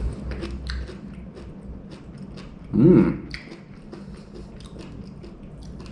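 Close-up chewing and crunching of a fried bluegill tail, with many small crisp crackles. About three seconds in comes a short hummed 'mmm' from the person eating.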